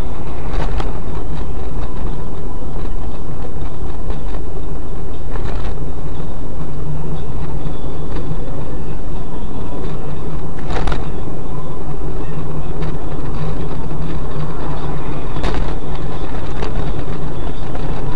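A car driving, with steady engine and road noise and a few sharp knocks, the strongest about halfway through.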